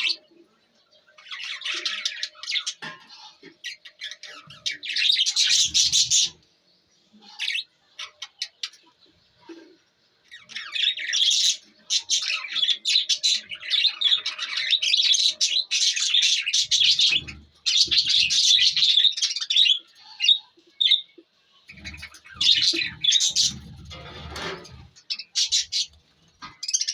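Baby budgie chicks chirping and squawking in rapid, raspy bouts of a few seconds each, with short pauses between. The longest bout runs for about ten seconds in the middle.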